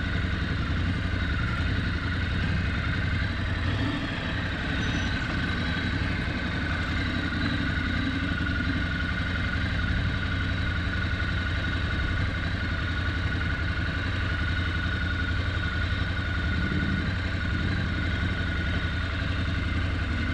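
Engine of an off-road vehicle running steadily at low speed on a dirt trail.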